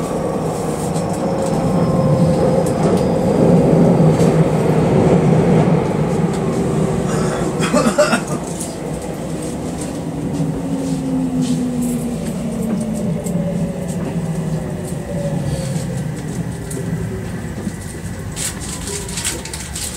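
Tokyu 3000 series electric train heard from inside the car: steady running rumble of wheels and motors. A brief clatter comes about eight seconds in, and in the second half several motor whines fall in pitch as the sound eases off.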